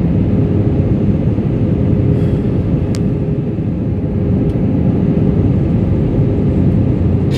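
Steady roar of engine and airflow heard inside an airliner's cabin in flight, with a faint steady hum and a single small click about three seconds in.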